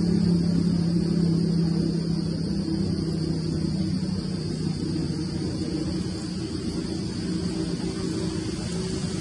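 A steady low droning hum with a couple of held tones over a constant high hiss; the lowest tone fades out about halfway through and the drone eases a little.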